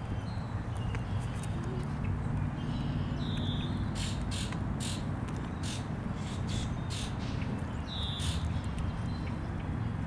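Birds calling over a steady low rumble: two short high calls a few seconds apart, with a quick run of sharp high chirps in between.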